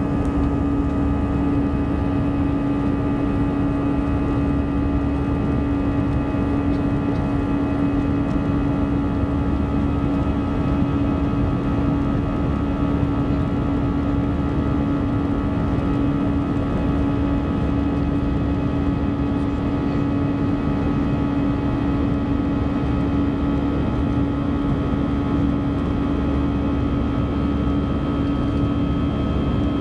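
Jet airliner cabin noise during the climb after take-off: the engines and airflow make a steady rushing drone with a strong constant hum and fainter steady tones above it. A faint higher tone joins near the end.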